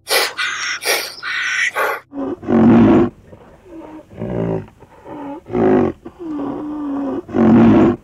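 A run of short, harsh, high calls for about two seconds, then a large animal's deep calls, five in a row, each bending in pitch, with the first and last the loudest.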